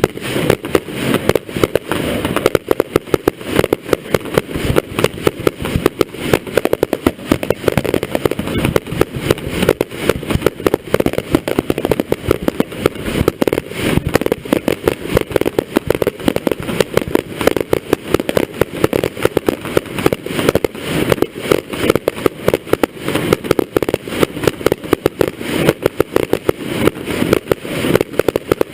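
Fireworks display finale: a dense, continuous barrage of aerial firework bursts, many bangs a second without a break.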